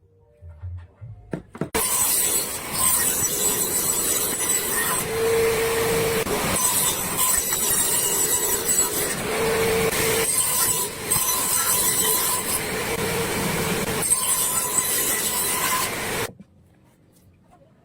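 A woodworking tool cutting or abrading wood: a loud, continuous rasping noise in several long passes that starts abruptly about two seconds in and stops abruptly near the end.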